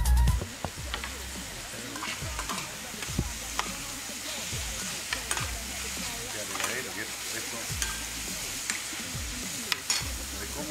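Mushrooms sizzling as they sauté in olive oil with garlic and basil in a stainless steel pan, stirred with a metal spoon that scrapes and clicks against the pan now and then. A music jingle cuts off about half a second in.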